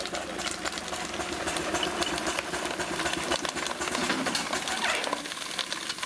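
4-inch scale Fowler BB1 live-steam ploughing engine working under load as it climbs a trailer ramp: a rapid, even mechanical clatter of exhaust beats and motion that eases off a little after five seconds in.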